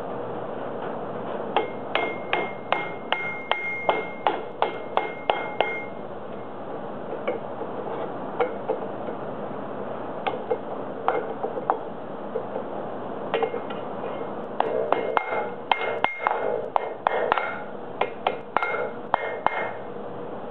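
Hand hammer striking a red-hot steel bar against a steel bending jig plate, bending it around the jig's boss. Two runs of quick blows, about three a second, with a pause of several seconds between them; the early blows ring briefly. A steady hum runs underneath.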